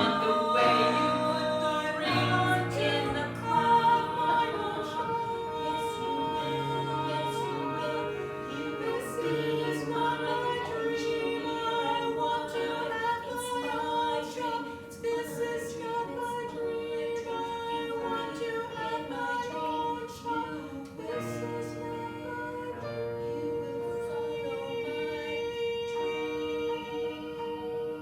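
Live stage music: voices singing long held notes, as in a choir, over a low bass accompaniment, with no clear words.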